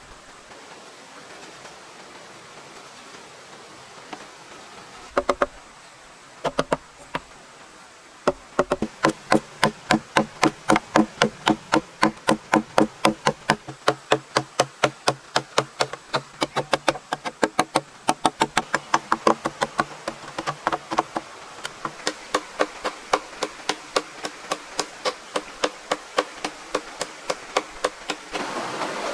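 Hammer striking repeatedly in building work: a few separate blows, then a long steady run of blows at about three a second that stops shortly before the end.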